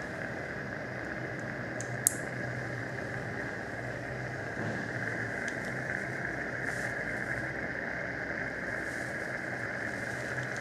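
Steady hiss of a surgical suction tip drawing air and fluid from the mouth, with a low hum under it. A single sharp click about two seconds in.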